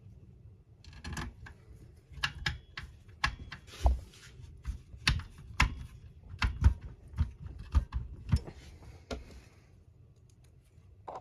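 Irregular clicks and light taps of a small screwdriver and plastic model-kit parts being handled while small screws are fitted, about one to two a second, stopping shortly before the end.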